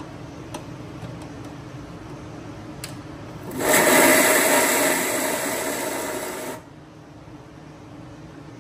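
Electric mixer grinder running in one short pulse of about three seconds midway, starting and stopping abruptly, coarsely grinding the coconut, raw mango, onion and green chilli for the chutney.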